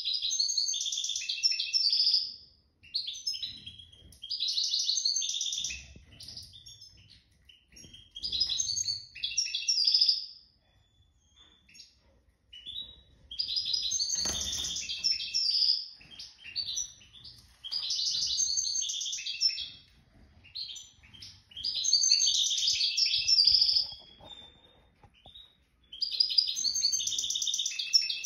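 A songbird singing in bright, twittering phrases of about two seconds each, repeated seven or eight times with short pauses between them.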